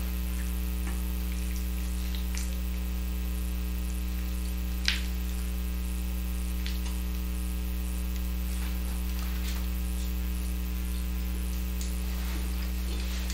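Steady electrical mains hum in the recording, with a few faint, scattered clicks of a plastic fork working food on a plate. The sharpest click comes about five seconds in.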